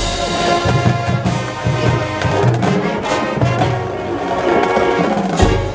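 High school marching band playing live on the field: the brass section holds loud sustained chords, with a loud percussion hit near the end.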